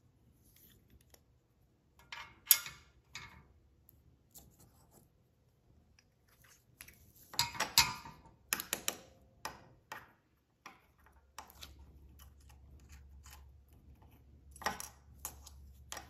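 Small disc magnets clicking together and against an aluminum sleeve as a magnetic fidget toy is taken apart by hand: scattered sharp clicks and short clatters, busiest about seven to nine seconds in.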